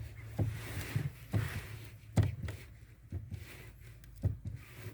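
Clutch pedal of a 1992 VW Passat B3 pressed and released several times, giving soft knocks from the pedal and pedal assembly with no crunch: the crunch has gone now that WD-40 is on the assembly's rubbing points. A low steady hum runs underneath.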